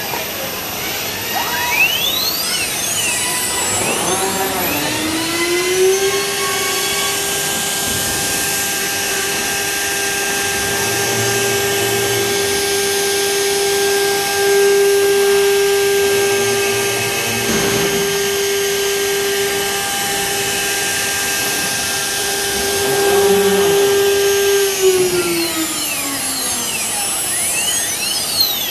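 CNC router spindle with an automatic tool changer. It spins up to a steady high whine, holds that pitch while the bit routs a profile into a wooden panel, and winds down again a few seconds before the end.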